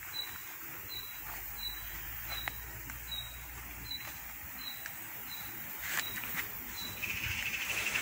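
A cricket chirping steadily: a short high chirp about every two-thirds of a second. Near the end a rapid buzzing trill joins in.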